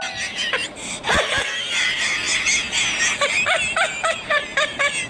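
A person laughing hard and squealing in high-pitched bursts, with two dull knocks about a second in.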